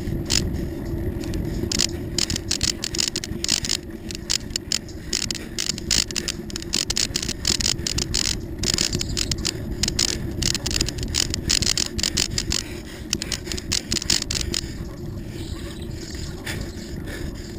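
Bicycle rolling along a paved trail: a steady rumble of tyres and wind, with dense irregular rattling and clicking from the bike that eases off near the end.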